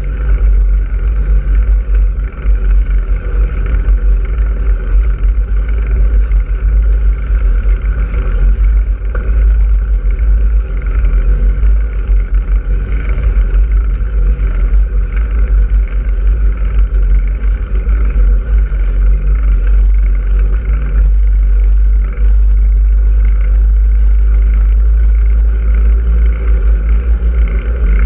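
Heavy wind buffeting the microphone of a camera moving along a highway shoulder, mixed with steady road and traffic noise. A vehicle overtakes near the end.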